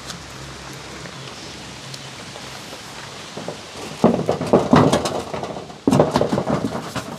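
Steady hiss of rain in the surrounding trees and bush, with two louder, irregular stretches of sound about four and six seconds in.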